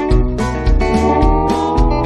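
Background music with plucked string notes over a steady beat.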